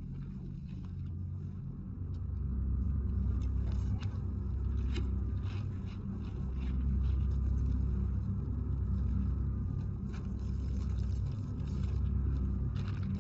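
A deep, steady rumbling drone that swells and fades every few seconds, with faint scrapes and clicks of small handling sounds now and then.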